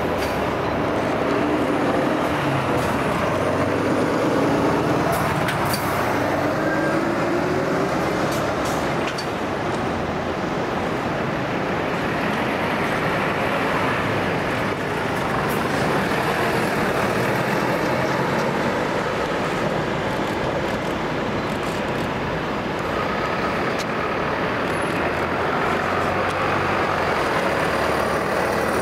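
Large fire-service trucks driving slowly past one after another, their diesel engines running and tyres on the road.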